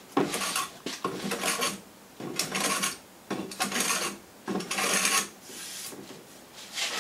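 Hand plane shaving the face of a rough-sawn board in about six scraping strokes, roughly one a second, the last ones fainter. The blade is taking down ridges left where a circular saw did not cut deep enough, to flatten the surface.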